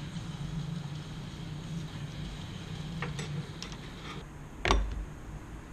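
Hand work on a Stihl MS 270 chainsaw's side plate: a few light ticks from a Torx screwdriver and metal parts, then one sharp knock about three quarters of the way through as the plate or a tool is handled, over a steady low hum.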